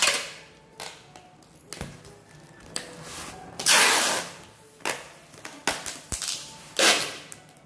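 Clear packing tape (scotch tape) being pulled off its roll in several rips and stuck down across a cardboard box, with hands rubbing and pressing on the cardboard. The longest, loudest rip comes about halfway through, another near the end.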